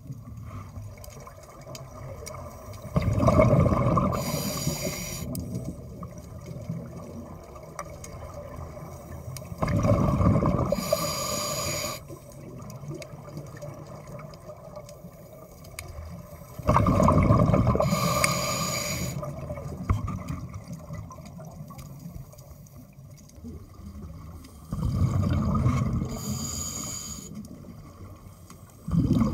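Scuba regulator exhaust bubbles underwater: a diver's breathing, with a loud rush of exhaled bubbles about every seven seconds, four times. Each burst starts suddenly and lasts two to three seconds, with quieter noise between breaths.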